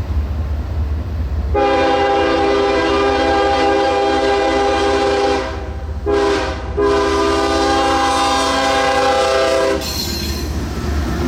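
Freight locomotive's multi-chime air horn sounding a long blast, a short blast, then another long blast over the low rumble of the train. The horn chord cuts off near the end, leaving the train's rumble and wheel noise.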